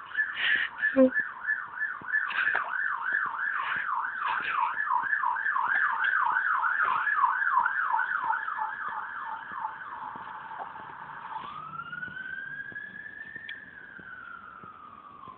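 Electronic siren in a rapid yelp, about three up-and-down sweeps a second, for about ten seconds. It then switches to a slow wail that rises once and falls, growing fainter.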